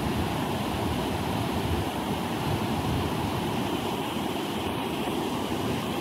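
Water pouring over a low stepped weir, a steady rushing.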